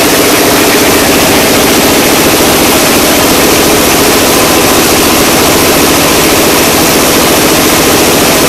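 Engine of a clay brick-making machine running steadily under load, loud and close, with a fast, even pulsing beat.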